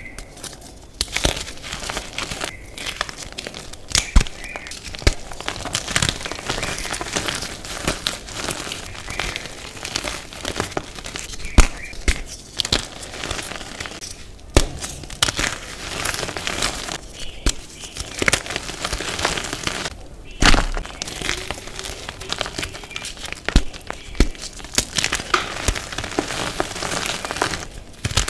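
Reformed gym chalk being crumbled and crushed between the fingers: a dense crunchy crackle with frequent sharp snaps as chunks break apart.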